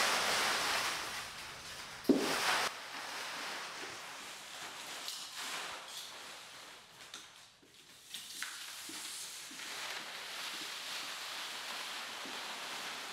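A broom sweeping heaps of cut paper scraps across a wooden floor, a steady rustle of paper, with one sharp knock about two seconds in and a brief lull a little past the middle.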